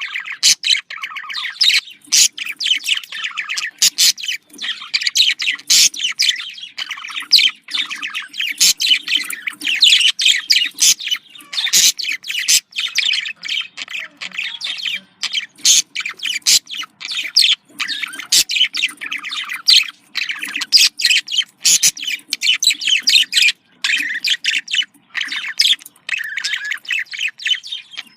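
Budgerigars warbling and chattering: a busy, continuous stream of quick high chirps with only brief gaps.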